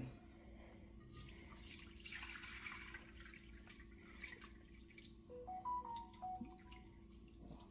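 Seasoned cooking oil poured from a pot through a wire-mesh strainer into a glass container, trickling and dripping faintly.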